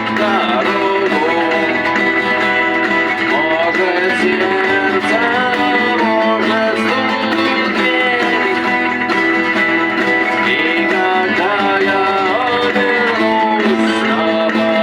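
Guitar-led music, with a voice singing over the guitar.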